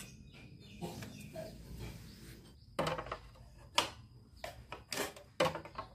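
Several sharp clicks and knocks from metal parts and tools being handled around a motorcycle's exhaust and oxygen sensor, most of them in the second half.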